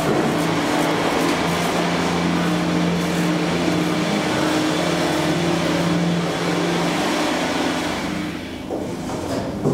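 KONE Transys machine-room-less traction elevator car travelling: a steady motor hum under rushing ride and air noise. The sound eases down about eight seconds in as the car slows, and there is a short knock at the very end.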